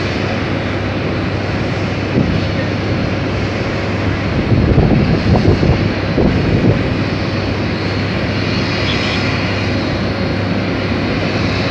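Turbofan engines of a taxiing Boeing 787-9 Dreamliner running at low taxi thrust: a steady loud jet whine and rush over a low hum, with louder uneven rumbles in the middle.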